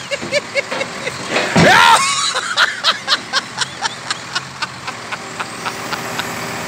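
A person laughing hard in quick ha-ha pulses, with one loud drawn-out cry about a second and a half in. The laughter dies away after about four seconds, leaving the steady hum of the crane truck's engine.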